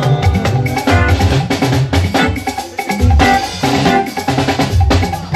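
Party band music, an instrumental stretch with drum kit, bass and guitar playing a steady danceable beat.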